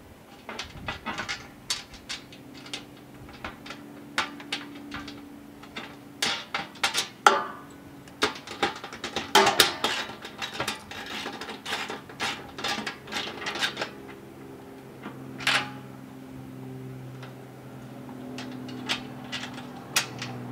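Irregular metallic clinks, clicks and rattles of bolts, washers and tools against the metal feeder drum as the feeder hardware is fitted and tightened from inside the drum, busiest about halfway through. A faint steady low hum runs underneath.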